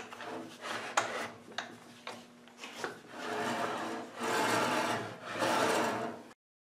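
Wooden jig fence being swung and slid across an MDF bandsaw table, wood scraping on wood in three drawn-out strokes after a few light knocks and clicks. The sound cuts off suddenly near the end.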